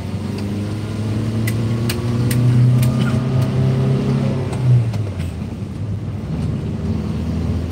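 Car engine running, heard from inside the cabin, its note rising over a few seconds as the car picks up speed and then dropping off about five seconds in. A few light ticks in the first half.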